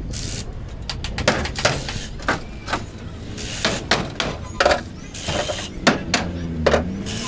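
Irregular knocks and clanks, about a dozen over several seconds, as a large tank is shifted and set down on the bare metal floor in the stripped rear of a Maruti Omni van.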